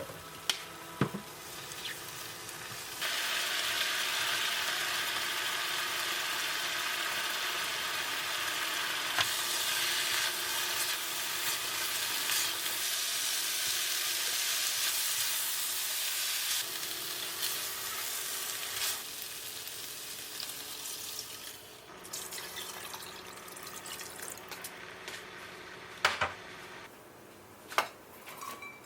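Food sizzling in a frying pan. The sizzle starts suddenly about three seconds in and dies down after a quarter of a minute, with a few sharp utensil knocks near the start and near the end.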